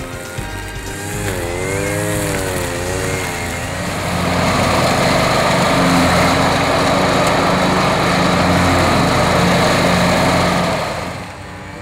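John Deere riding lawn mower running steadily as it cuts through tall grass, loud from about four seconds in until it cuts off near the end. Background music is heard in the first few seconds.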